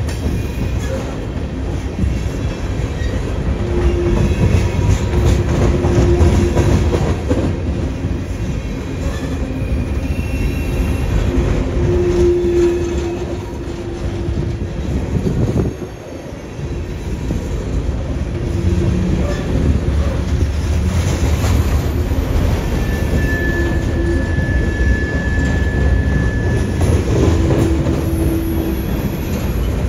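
Empty coal hopper cars of a freight train rolling past with a steady rumble and wheels clacking over the rail joints. Faint wheel squeals come through now and then.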